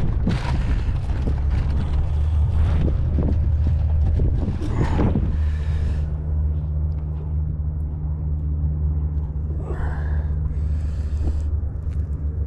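Steady low rumble with a hum, under wind buffeting the microphone for the first five or six seconds. The wind then drops off, and a couple of short rustles come near the end.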